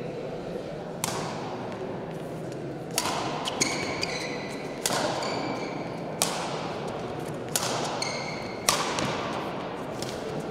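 Badminton rally: a racket strikes the shuttlecock about seven times, sharp cracks roughly a second or so apart that ring on in a large hall. Short high-pitched squeaks, typical of court shoes, follow several of the hits.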